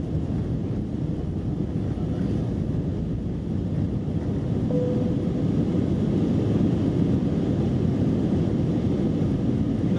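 Airbus A319 cabin noise heard from a window seat: a steady low rumble of the CFM56 engines and airflow, growing a little louder about halfway through.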